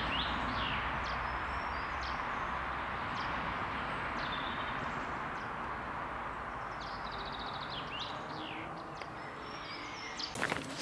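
Woodland ambience: small birds chirping and calling in short, scattered notes over a steady rushing hiss.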